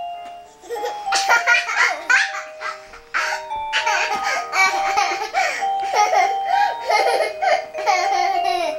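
A toddler laughing and squealing over a cat-shaped toy keyboard playing an electronic tune in a run of short held notes.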